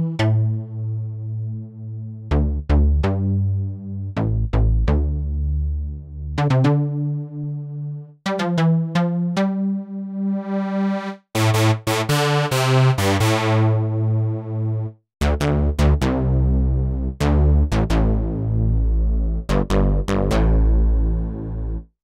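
Native Instruments Massive X software synthesizer playing a preset: a riff of short, bass-heavy synth notes with sharp attacks. The tone turns much brighter for a few seconds about halfway through. The phrase stops just before the end.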